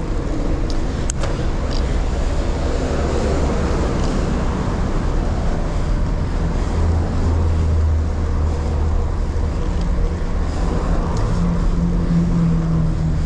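Steady rush of wind on a moving bicycle's action-camera microphone, mixed with traffic noise. A low engine drone from nearby traffic swells about halfway through and again near the end.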